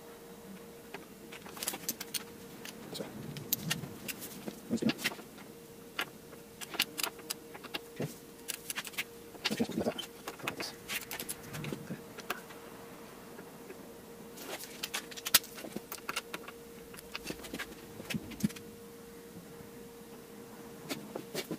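Irregular metallic clicks and clinks of hand tools as a torque wrench and socket are worked on and off a motorcycle's steering-stem ring nut, with a steady faint hum underneath.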